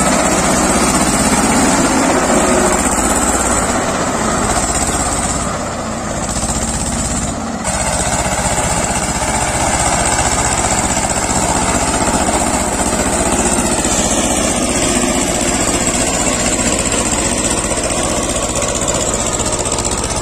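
An Escorts diesel tractor about fifty years old, its engine running steadily under load as it pulls a disc harrow through dry soil. The sound dips briefly about six seconds in, then carries on at the same level.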